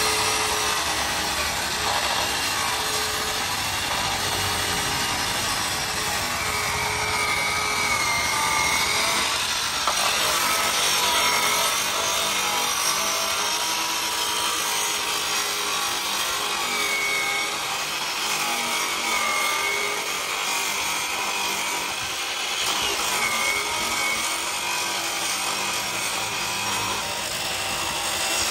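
Abrasive chop saw running with its cut-off disc grinding through a rusty steel bar: a steady harsh grinding with a motor whine that rises and falls in pitch again and again.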